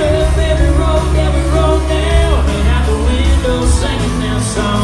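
Live country band playing: a lead voice singing over acoustic guitars, electric guitar, bass and drums, with a heavy, steady bass.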